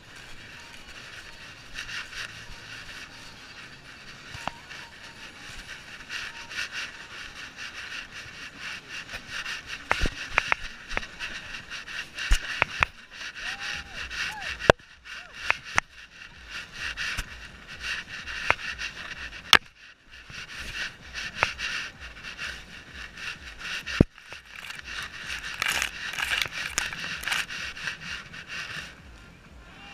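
Dog-mounted GoPro scraping and rustling against the dog's fur and harness as it moves through grass, with scattered sharp knocks and clicks.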